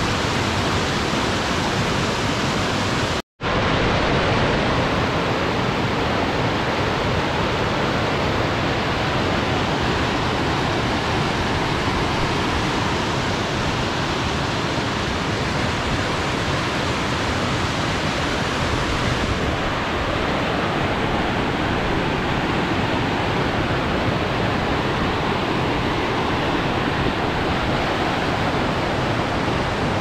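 Mountain stream rushing over rocks: a steady, full water noise that drops out for an instant about three seconds in.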